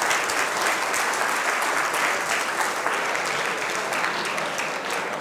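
Audience applauding: many people clapping steadily, easing off a little near the end.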